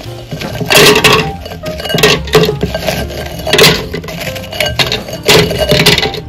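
Oreo cookies dropped one at a time into an empty blender jar, each landing with a light clack on the jar's bottom, the blade or the cookies already in it, in a quick irregular run of about a dozen knocks.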